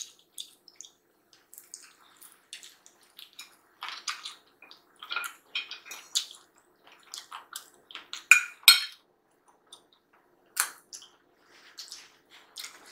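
Eating a fried chicken drumstick close to the microphone: irregular wet chewing and lip-smacking clicks, with a fork clicking and scraping on a ceramic plate. The sharpest clicks come a little past the middle.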